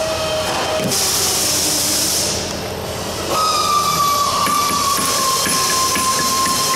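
Steady workshop hiss with a high whine that comes in about three seconds in and slowly drops in pitch. A few light taps from a soft-faced mallet on an aluminium former flange come through underneath.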